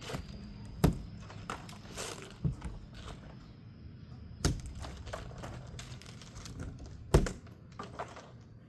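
Scattered sharp knocks and thumps from handling a large cardboard-boxed roller tool cabinet, with four louder hits about a second, two and a half, four and a half and seven seconds in and lighter taps between.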